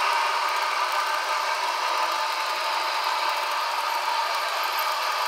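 Model train passenger cars rolling past on sectional track: a steady rattle of small wheels on rail.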